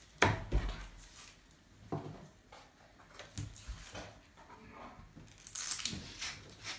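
A kitchen knife cutting through a hard raw carrot onto a plastic cutting board: a few separate knocks at uneven intervals, the sharpest about a quarter second in and a small cluster near the end.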